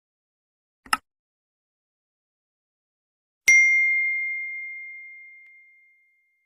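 Subscribe-button animation sound effects: a short click about a second in, then a single high bell ding about three and a half seconds in that rings on and fades away over a couple of seconds.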